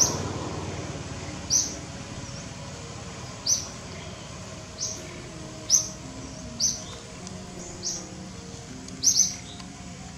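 A bird giving short, high chirps, one every second or two and a quick pair near the end, over a faint steady low background hum.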